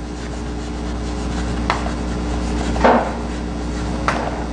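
Steady low electrical hum with three brief rustling scrapes about a second apart.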